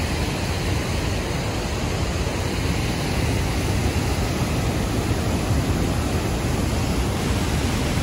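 Waterfall and rapids of a muddy river in flood: a steady, deep rushing of water.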